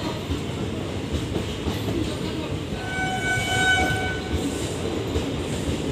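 Indian Railways passenger coaches rolling slowly along a platform, with a steady low rumble and wheel clatter. A train horn sounds once, steadily for about a second and a half, about three seconds in.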